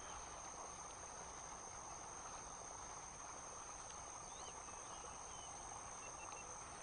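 Faint, steady high-pitched drone of insects, with a few faint short chirps in the middle.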